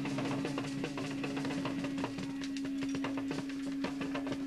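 Drum kit played live, a rapid run of hits on the drums and cymbals, with a steady low hum underneath.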